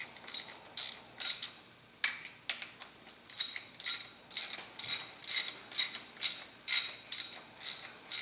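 Hand ratchet wrench clicking as it is worked back and forth, sharp metallic clicks about two a second, with a short pause about two seconds in.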